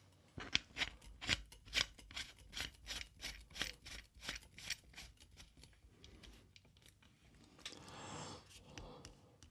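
Microphone shock mount being screwed onto a mic stand's threaded boom by hand: a quick run of sharp clicks, about four a second, lasting about five seconds, then softer rubbing and handling near the end.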